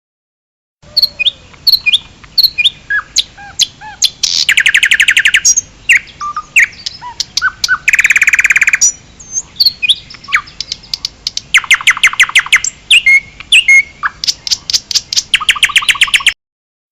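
A songbird singing: a varied run of short chirps and whistled notes, broken four times by fast trills of rapidly repeated notes.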